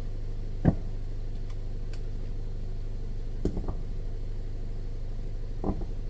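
Car engine idling steadily, heard from inside the cabin, with a sharp knock about a second in and softer knocks halfway through and near the end.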